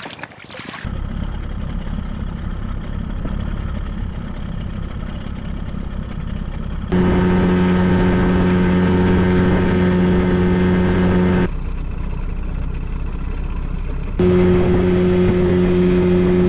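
Two-stroke outboard jet motor running in alternating stretches: a steady idle, then a loud, steady, high-pitched drone at full throttle with the bare cowling, then idle again, then full throttle again with a sound-deadened cowling. Each change between idle and full throttle comes suddenly.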